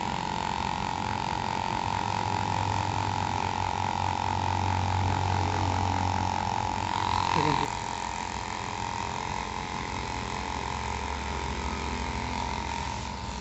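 Handheld electric vibrating massager buzzing steadily with a held motor hum. Its pitch shifts a little after a brief louder swell about halfway through.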